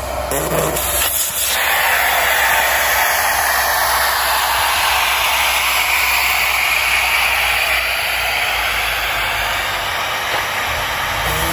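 Air hissing steadily out of a car tyre through a screw-on automatic tyre deflator, letting the tyre down toward its preset 15 psi for driving on sand.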